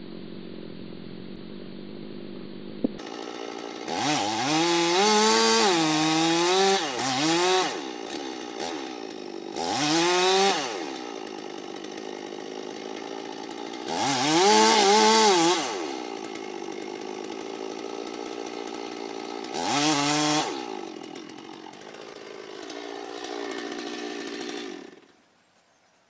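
Chainsaw revving hard in repeated bursts as it cuts into a massive tree trunk, its pitch wavering under the load, then dropping back to a lower running speed between bursts. It stops shortly before the end.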